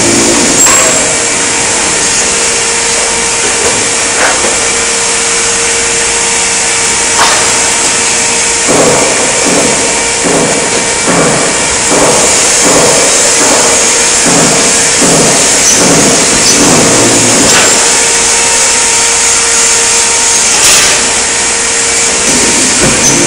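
Loud, steady machine noise from a hydraulic press brake running, with a steady hum that stops near the end. There are scattered clicks and knocks, and a run of rhythmic pulsing for several seconds in the middle.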